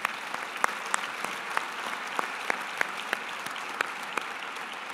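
Audience applause, a steady patter of many hands. One person clapping close to the podium microphone stands out as sharp claps about three a second.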